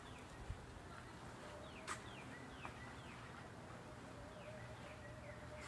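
Faint birds chirping: short falling chirps, repeated irregularly, with a few sharp clicks, the loudest about half a second and two seconds in.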